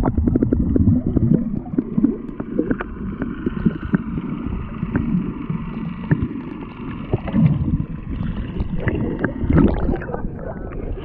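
Muffled underwater sound heard through a submerged camera: a low water rumble and gurgling, with many small clicks and knocks scattered throughout.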